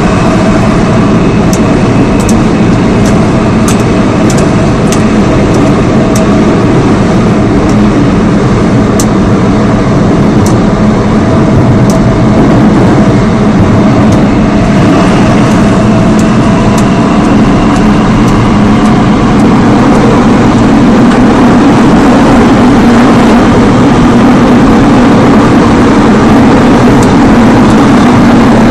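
Seoul Subway Line 5 5000-series train with ABB GTO inverter drive, heard from inside the car while running at speed: a steady, loud rumble of wheels and running gear. A faint steady whine fades away about halfway through, and the noise grows slightly louder after that.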